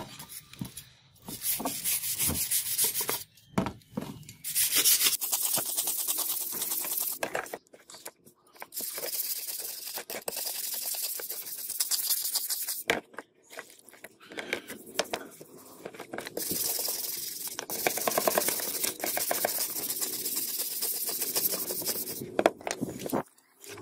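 Steel wire brush scrubbing the wet, rusty steel blade of a butcher's slicer in quick back-and-forth strokes, scraping off loosened rust. The scrubbing comes in several runs with short pauses between them.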